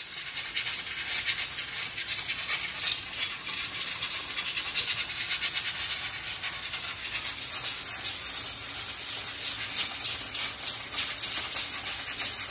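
Aluminium stovetop pressure cooker on a gas burner hissing steam from its weighted valve, with a fast, even rattle running through the hiss: the cooker is up to pressure and venting.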